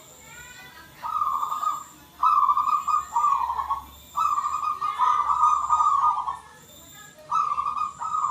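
Zebra dove (perkutut) cooing: a rolling, warbling coo held at one pitch, repeated in about five phrases with short pauses between them. The longest phrase, near the middle, lasts about two seconds.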